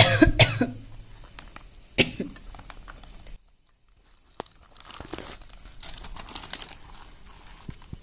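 A person coughs twice in quick succession, then once more about two seconds in. After a moment of dead silence a little past three seconds, a plastic bag of curry rustles as it is squeezed out over the food.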